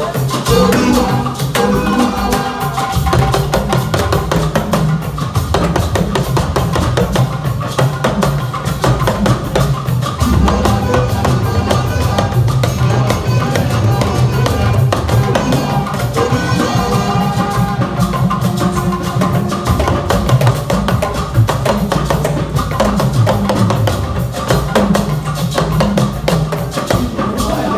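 Yoruba talking drums (dùndún) struck with curved sticks in a fast, continuous ensemble drumming passage, with other hand percussion filling in.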